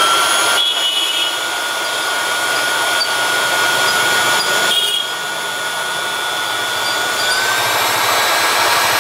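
Small electric blower running: a steady high whine over a rush of air, its pitch stepping up slightly about seven and a half seconds in.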